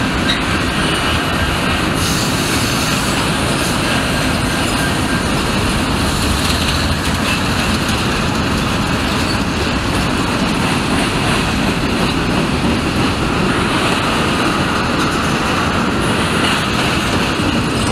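Freight trains passing on a curve: a steady, loud rumble and rattle of rolling freight cars, joined by Union Pacific diesel locomotives pulling a second freight on the adjacent track.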